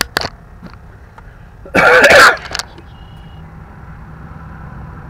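A man clears his throat once, a short loud rasp about two seconds in, with a few light clicks around the start and a faint low hum in the background afterwards.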